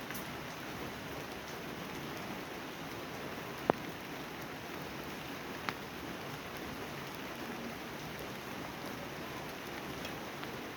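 Steady rain falling, an even patter throughout, with two sharp louder drips or taps about four and six seconds in.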